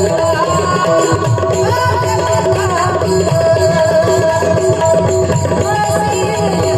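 Devotional kirtan music: tabla drumming under a singing voice that slides between notes, over a steady held note.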